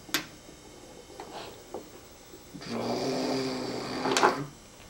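Light clicks and knocks of wooden toy train pieces and a toy crane being handled. About two and a half seconds in comes a rough, low, sustained sound lasting nearly two seconds, ending with a sharp knock, the loudest moment.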